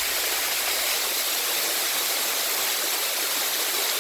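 Waterfall rushing steadily: a constant, even roar of falling and splashing water.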